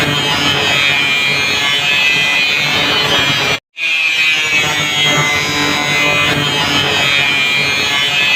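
Angle grinder running steadily with a high whine and grinding noise; it cuts out for a split second about three and a half seconds in, then resumes as the recording loops.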